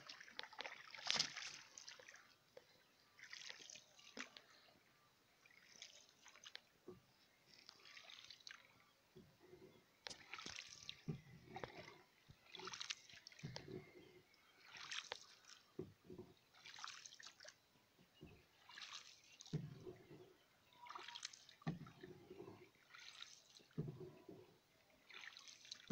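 Faint, slow, regular splashing and dripping of water, about one stroke every two seconds, as a paddle dips and lifts beside a small boat on calm water.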